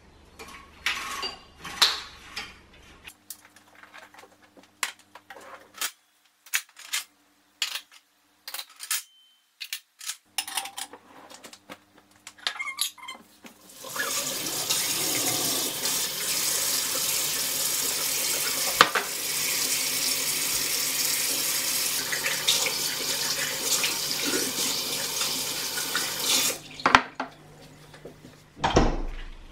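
Scattered light clicks and knocks of kitchen items being handled, then a kitchen tap running steadily into a sink for about twelve seconds while something is rinsed under it. The water stops suddenly, and a few more knocks and a low thump follow near the end.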